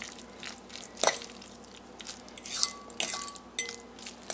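Metal fork stirring a chicken and mayonnaise filling in a glass mixing bowl, its tines clinking against the glass several times at an uneven pace. Each clink rings briefly, and the loudest comes about a second in.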